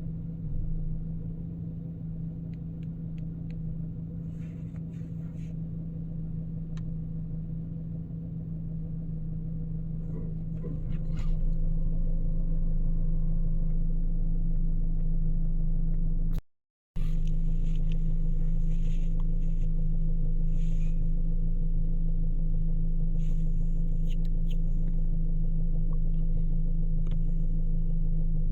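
Car engine running steadily with a low hum, on a car with a diagnosed misfire on cylinders 2 and 4 (code P0300). It gets louder about eleven seconds in, and cuts out briefly near seventeen seconds.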